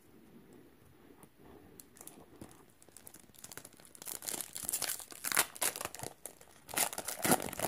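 Foil wrapper of a Magic: The Gathering Ikoria booster pack crinkling and tearing as it is ripped open by hand, loud crackling from about four seconds in. Before that, faint rustling of cards being handled.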